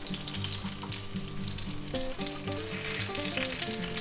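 Breaded pork cutlets frying in hot oil in a cast iron skillet, a steady crackling sizzle of small pops.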